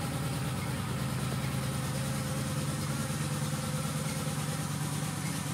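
2011 Moto Guzzi V7 Classic's air-cooled 90-degree V-twin idling steadily through aftermarket Mistral reverse-cone mufflers joined by a crossover pipe, a low, even exhaust pulse.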